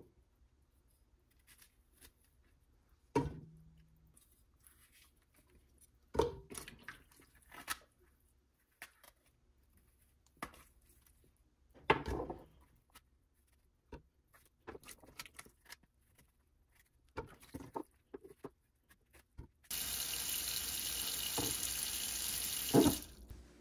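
Knife and hands splitting and handling honey mushrooms over a ceramic plate in a sink: scattered soft knocks and clicks. Near the end a kitchen tap runs steadily into a pot of mushrooms for about three seconds, then stops.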